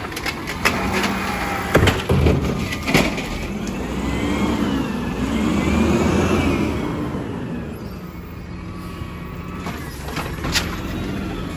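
Natural-gas Peterbilt automated side-loader garbage truck: knocks and clatter from the lift arm and cart in the first few seconds, then the engine revs up and back down with a whine rising and falling as the truck pulls forward to the next cart. A couple more sharp knocks near the end as the arm reaches out.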